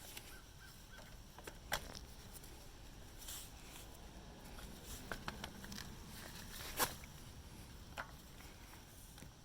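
Scattered light clicks and knocks of hands and tools handling parts on a pressure washer's small engine during carburetor reinstallation. There is a sharper knock a little under two seconds in and the loudest one about seven seconds in.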